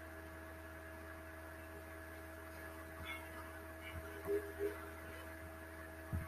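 Steady low electrical hum on the recording, with a few faint short ticks.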